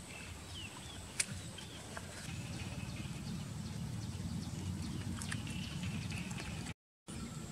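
Dog eating rice from a plastic bowl: scattered small chewing and mouth clicks over a steady low rumble, with a few bird chirps about half a second in. The sound drops out completely for a moment near the end.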